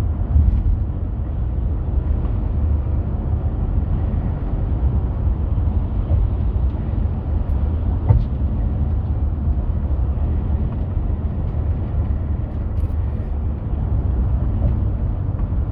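VW T5.2 4Motion BiTurbo van running with a steady low drone. About eight seconds in comes one sharp knock, with a few fainter clicks elsewhere. This is the knock on load change that the video sets out to show.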